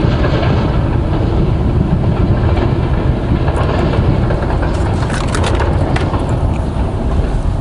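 Steady low rumble of wind buffeting the microphone, with a few light clicks about halfway through.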